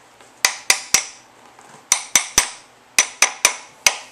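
Hammer tapping an aluminum seal alignment tool to drive a new rear main seal into the rear cover of a 5.3 Chevrolet Vortec engine. About ten sharp metallic taps in quick groups of two or three, each ringing briefly.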